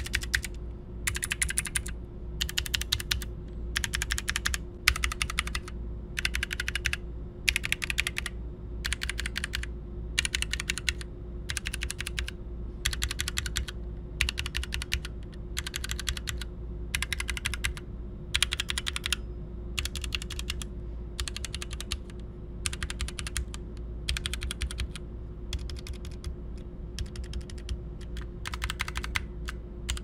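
Keystrokes on a mechanical keyboard in a switch sound test, cycling through switch types that include Kailh Green clicky switches and Kailh Box Brown tactile switches. The keys are pressed in short taps or quick runs, a little more than once a second.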